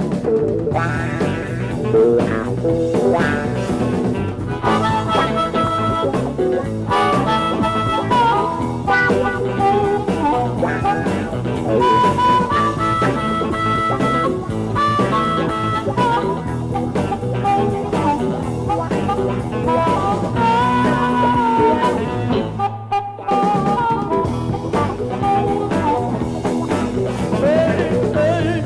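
Electric blues band playing live, electric guitar and band behind an amplified harmonica solo played into a cupped microphone, with bending, sustained notes. The music drops out for a moment about three-quarters of the way through.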